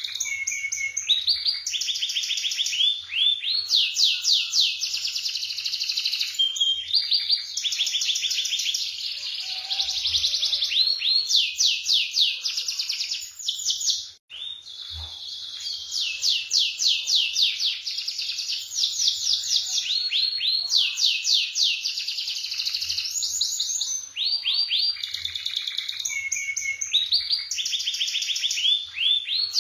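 Domestic canary singing continuously in fast rolling trills, long runs of rapidly repeated notes that change from phrase to phrase, with one brief pause about halfway through.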